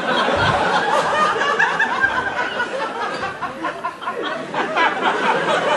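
Live audience laughing: many overlapping laughs from a crowd, sustained through the pause after a punchline.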